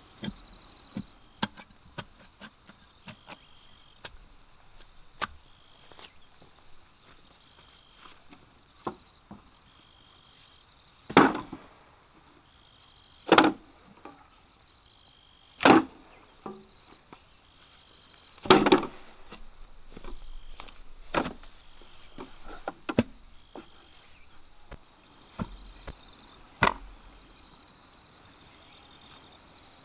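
Hand tools striking earth and bamboo: a digging bar jabbing into the soil and knocks on bamboo poles, a run of sharp knocks with about five loud strikes a few seconds apart. Insects chirp in short repeated bursts behind.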